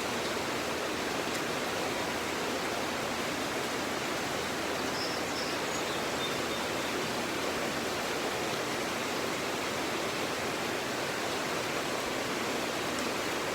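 Mountain stream: water rushing steadily, an even, unbroken wash of sound.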